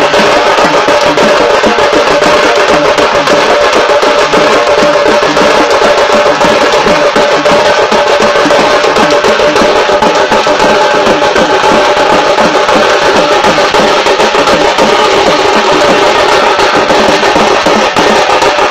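A band of cylindrical metal-shelled drums beaten with sticks in a fast, unbroken rhythm, the drumming of a Tamil funeral procession.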